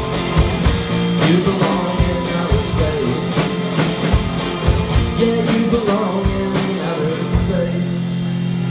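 Live rock band playing: electric guitar and drum kit, the drums hitting steadily. The drums stop near the end, leaving a held guitar chord ringing.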